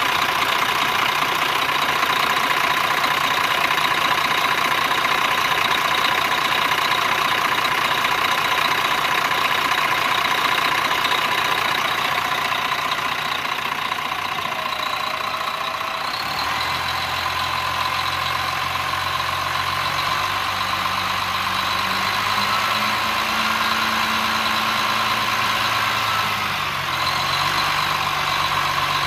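1996 International 2574 dump truck's 10.3-litre six-cylinder Caterpillar diesel running at idle, with a steady whine over the engine note. From about halfway through, its low note shifts up and down in steps a few times.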